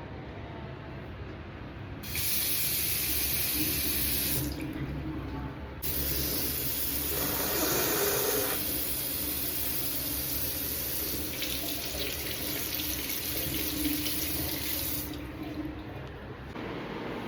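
Tap water running into a sink in two spells: on about two seconds in for two or three seconds, then again from about six seconds in until shortly before the end.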